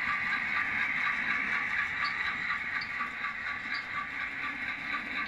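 HO-scale model ore hopper cars rolling past on model track, a steady whirring rumble of small metal wheels with light, irregularly spaced clicks.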